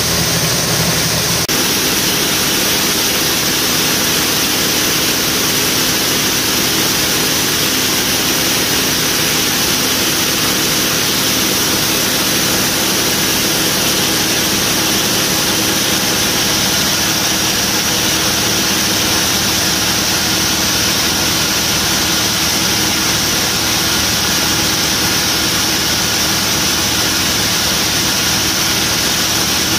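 John Deere T670i combine harvester running steadily under load: a constant engine drone with a heavy hiss of machinery. The lower tones shift slightly about a second and a half in.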